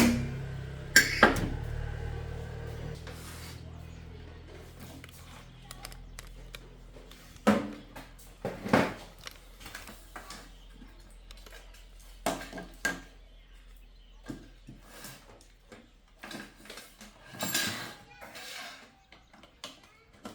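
Scattered short clinks and knocks, a dozen or so spread unevenly, over a low hum that fades out in the first few seconds.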